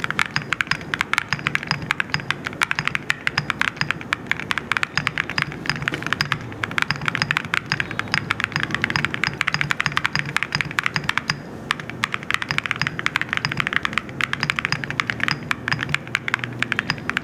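Fast typing on a Zoom64 mechanical keyboard fitted with Cerakey ceramic keycaps: a dense, continuous run of keystrokes, with brief pauses about six and eleven seconds in.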